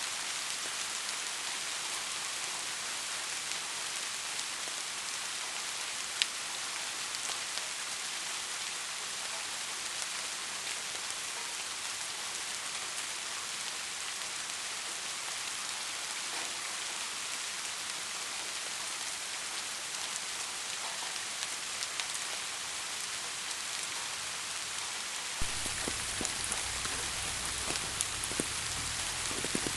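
Steady rain falling, an even hiss with the odd sharp tap of a single drop. About 25 seconds in, a low rumble joins and the drop taps come more often.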